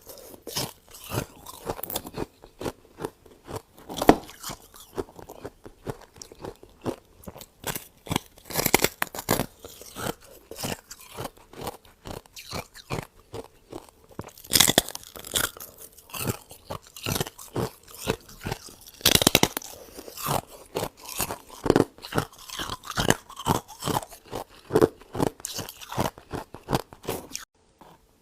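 Freezer frost being bitten and chewed close to the microphone: a long run of irregular, sharp icy crunches, some much louder than others, that stops abruptly near the end.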